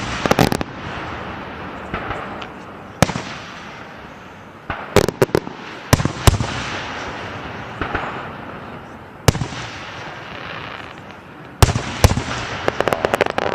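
Aerial fireworks bursting: sharp bangs every few seconds, some in quick clusters, each followed by a fading hiss. Near the end comes a dense run of rapid pops.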